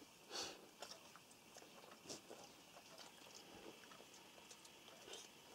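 Near silence: faint chewing and a few soft clicks of people eating at a table.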